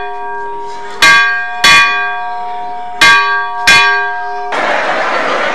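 A church bell struck in pairs, two strokes about half a second apart every two seconds, each stroke ringing on and fading. About four and a half seconds in it cuts off sharply to the steady noise of a crowd of voices.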